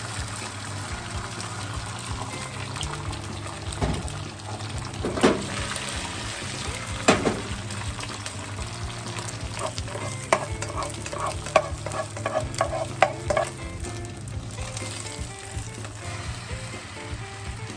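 Food sizzling as it fries in a pan, stirred with a utensil that knocks against the pan now and then. About halfway through comes a quick run of about ten knocks, some three a second.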